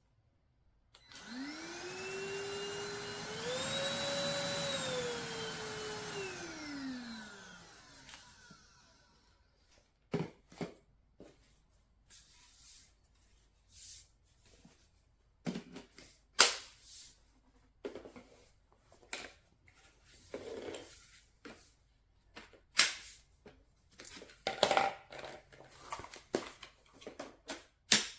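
Stick vacuum cleaner motor switched on, spinning up with a rising whine, stepping up to a higher speed a couple of seconds later, then winding down and stopping. Scattered clicks and knocks follow.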